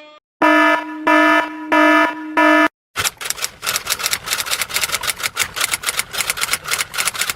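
An electronic buzzer or alarm sounds four short, evenly spaced buzzes. It then gives way to a fast, even run of sharp clicks, about nine a second.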